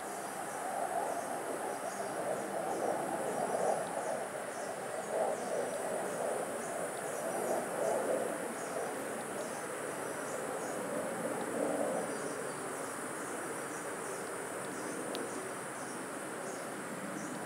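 Insects buzzing steadily, a high even drone with short chirps repeating over it. Under them is a soft rushing noise that is louder for the first twelve seconds or so and then eases.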